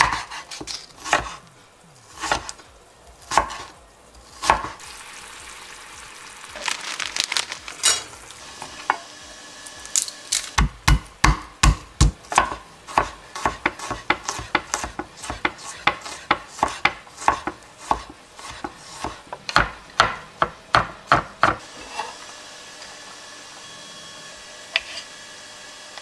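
Knife chopping onion and then garlic on a wooden cutting board. It starts with single cuts about a second apart, then a run of heavy low thumps about ten seconds in, then quick even chopping about two strokes a second, which tails off near the end.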